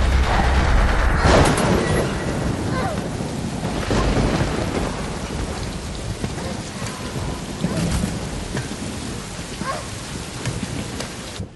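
Heavy rain pouring down in a thunderstorm, with a loud crack of thunder about a second in and further rumbles later.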